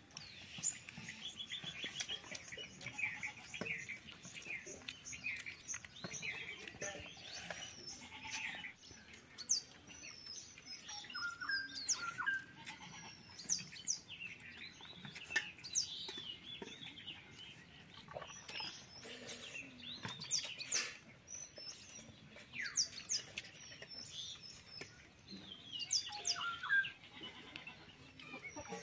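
Small birds chirping and calling throughout, many short high chirps and quick rising and falling notes.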